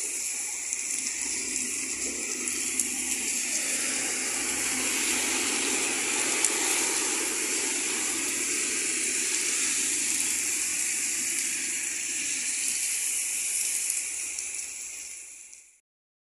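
Heavy rain pouring onto wet pavement and a flooded road, a steady hiss that fades out near the end.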